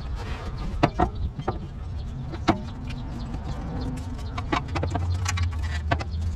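Scattered sharp clicks and knocks of a hydraulic motor mount being worked and wedged into its mounting hole in the engine bay, over a low steady hum that gets stronger about five seconds in.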